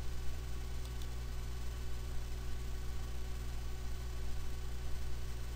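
Steady electrical mains hum with a layer of hiss from the recording setup, and one faint click about a second in.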